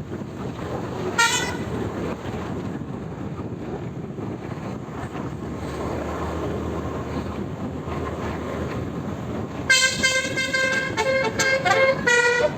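Multi-tone telolet bus horn (Basuri type): one short toot about a second in, then near the end a run of horn notes changing pitch in a tune. A steady low rumble runs underneath.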